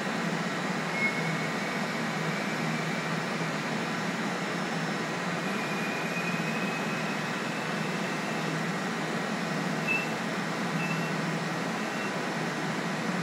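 CNC turret lathe running steadily while a tool on its turret machines aluminium bar stock, giving an even mechanical hum with a few faint, brief high-pitched squeaks from the cut.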